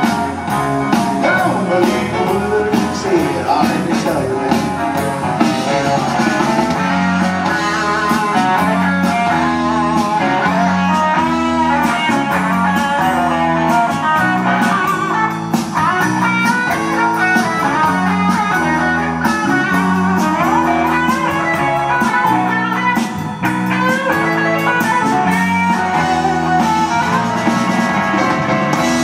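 Live band playing an instrumental stretch of a blues shuffle, with no singing: electric guitar over a steadily repeating bass figure, drums and keyboard.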